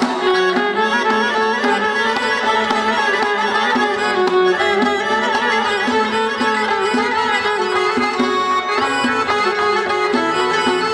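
A small traditional ensemble playing live: a frame drum beats a steady rhythm under a long-necked plucked lute and an upright bowed fiddle carrying a wavering melody.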